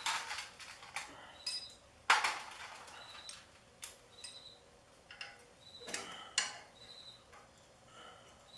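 Wrench and metal tine parts clinking and knocking together as a tiller's rear tines are worked on by hand: a handful of separate sharp metallic clinks with short ringing, the loudest about two seconds in.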